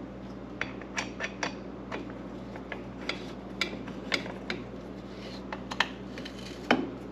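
Bolt being tightened on a snowmobile's rail brace with a hand tool: a series of sharp, irregularly spaced metallic clicks, with a louder knock near the end.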